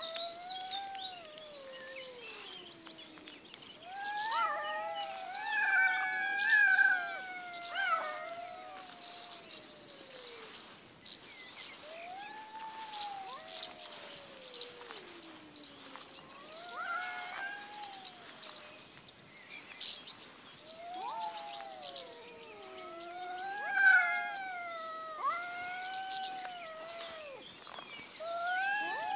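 Two domestic cats caterwauling at each other in a fight standoff: long, drawn-out yowls that waver up and down in pitch, at times two voices overlapping, with short pauses between calls. It is the threat call of cats squaring off before or during a fight.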